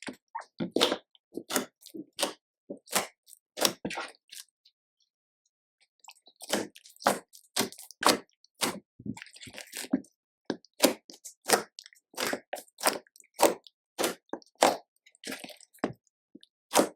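Slime being squeezed and kneaded by hand, giving a run of short wet clicks and squelches. They pause for about a second and a half about a third of the way through, then carry on.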